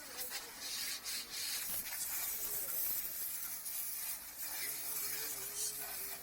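Water jet from a BTALI 1600-watt high-pressure car washer spraying, an uneven hiss that rises and dips.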